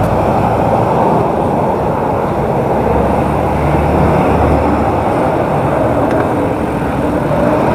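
Steady rushing of wind and wet-road noise from a bicycle riding in the rain, with a deeper rumble about three seconds in that lasts over a second.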